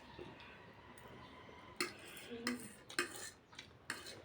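Eating utensils clinking against a bowl, with a few sharp clinks in the second half.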